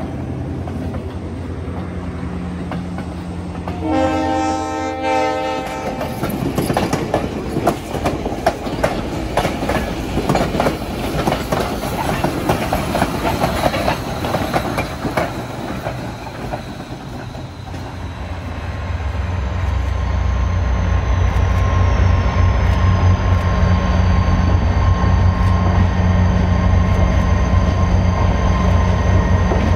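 Diesel locomotives rolling past at close range with their engines running; a train horn sounds for about a second and a half, then a long stretch of wheel clatter and rattling as the train, with a steam locomotive in it, goes by. After a cut, an approaching diesel locomotive's engine drone grows steadily louder, with a high whine that slowly falls.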